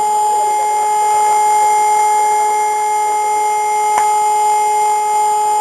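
Fire engine siren holding one steady high tone, with a single sharp pop about four seconds in.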